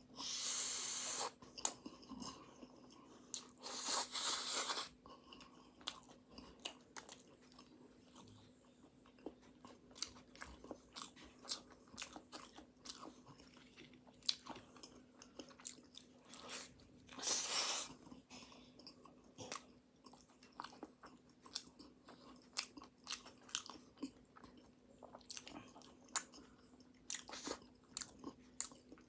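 Close-miked chewing and biting of flaky pastry, with many small crunchy mouth clicks. Three louder hissy bursts of about a second each come near the start, about four seconds in and about seventeen seconds in, over a steady low hum.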